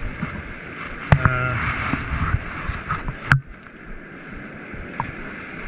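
Ocean surf washing and fizzing over the sand, with wind on the microphone and a few knocks from handling the fish and line. The loudest knock comes about three seconds in, and after it the hiss drops off sharply.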